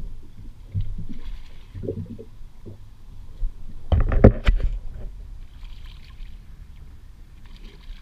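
Water slapping and trickling against the hull of a small fiberglass skiff, with low rumbling thumps. About four seconds in comes a brief cluster of loud, sharp knocks on the boat.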